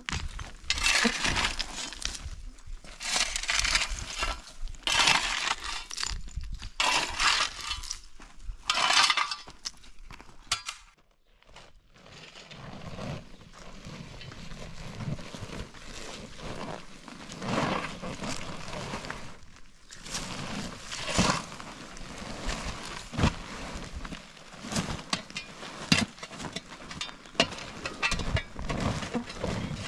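A long-handled rake scraping across dry stubble and stony soil in about five strokes, roughly one every two seconds. After a short pause, a woven plastic tarp rustles and crackles as it is unfolded and dragged over the ground, with scattered sharp knocks.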